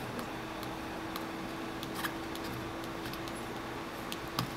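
Fingertips pressing and rubbing a plastic screen protector on a phone screen to work out air bubbles, with a few faint scattered clicks, over a steady low hum.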